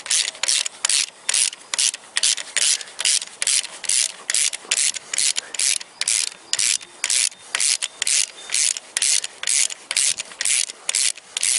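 Ratchet wrench with a 17 mm socket swung back and forth in quick short strokes, its pawl rasping about three to four times a second, as it runs a drive belt tensioner bolt in snug before final torquing.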